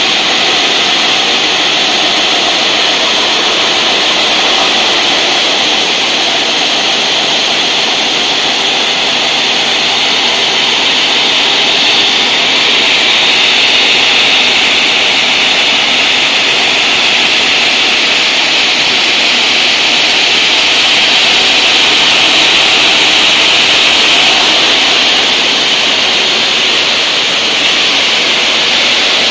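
Furuite FRT2000 bridge block cutter's large circular saw blade cutting through a stone block under water spray, a loud, steady, hissing grind.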